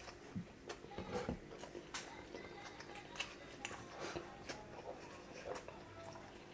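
Close-miked eating sounds: irregular wet clicks and lip smacks of chewing saucy braised meat, coming every fraction of a second.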